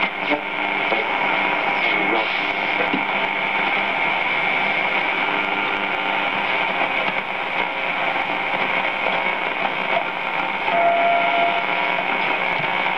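Old Lemouzy MYA valve radio's loudspeaker giving off steady static between stations as its tuning knob is turned, with faint steady tones in the hiss and a brief whistle near the end.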